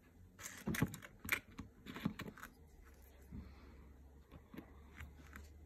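Small plastic nail-gel pots and their lids clicking and tapping as they are handled on a tabletop: a quick run of sharp clicks in the first two and a half seconds, then a few fainter taps.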